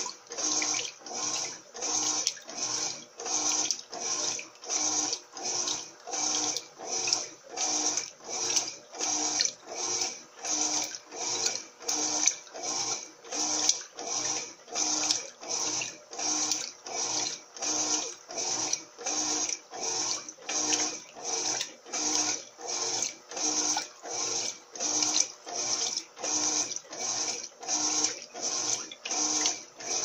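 Electrolux Turbo Limpeza 8 kg top-loading washing machine agitating a load of blankets, with the turbo setting off. Water and laundry slosh in a steady rhythm, about three swishes every two seconds, as the agitator reverses.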